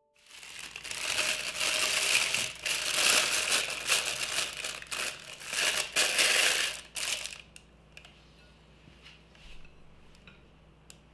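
Disposable plastic piping bag crinkling as it is opened and fitted into a tall plastic cup, for about seven seconds, then only a few faint clicks and rustles.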